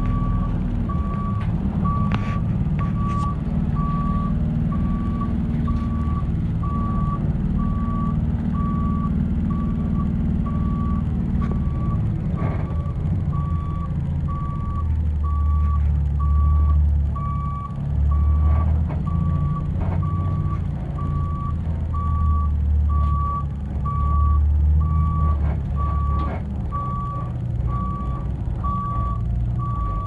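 School bus reversing alarm beeping about once a second, one steady high tone, over the bus's engine running low. The engine grows louder about halfway through.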